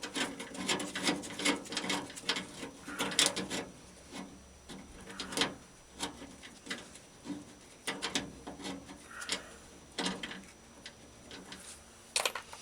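Irregular metal clicks, clinks and scrapes of hand work inside a 1960 Ford F100's door, loosening the fasteners that hold the window track.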